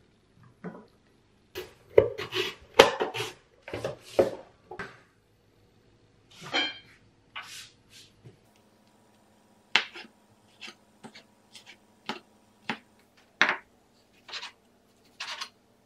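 Kitchen knife cutting food on a plastic cutting board, the blade knocking against the board. There is a quick run of chops about two seconds in, then slower, spaced single knocks as the slicing goes on.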